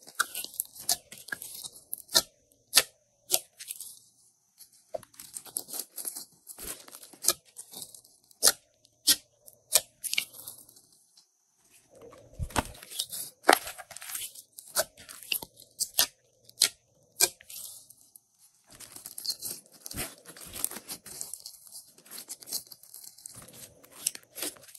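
Glossy slime being stretched, squeezed and folded by hand: sticky tearing and crackling with many irregular sharp pops and clicks.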